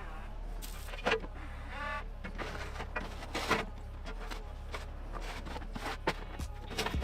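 Mini excavator's small diesel engine running steadily, with scattered knocks and scrapes from the bucket working the ground.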